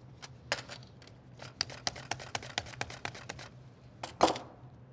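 Cucumber being sliced on a handheld mandoline: a quick run of crisp clicks, about six a second, as the blade cuts through, with a louder knock near the end.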